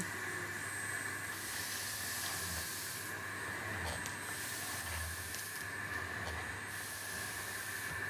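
Bosch Relaxx'x ProSilence 66 bagless vacuum cleaner running with a steady hissing rush of air.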